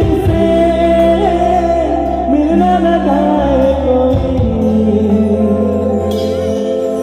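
Amplified live band music: a man singing an Assamese song over sustained keyboard chords and bass, with the low notes dropping away near the end.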